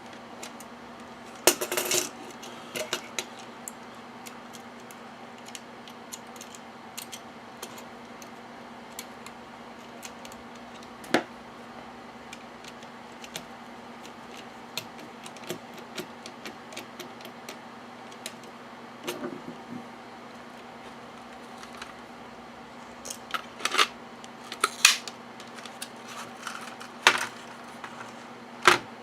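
Hands working a plastic EST Genesis fire alarm strobe apart to get at its wiring and circuitry: scattered clicks, clacks and small rattles of plastic parts, louder near the start and in the last few seconds. A steady low hum runs underneath.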